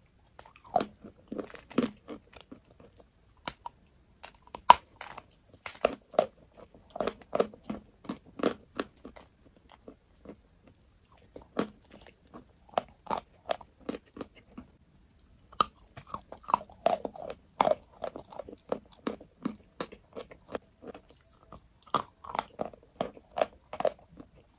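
Close-miked crunching and chewing of dry white chalk, partly coated in a brown paste: bursts of sharp brittle cracks as pieces are bitten and ground between the teeth, broken by brief pauses.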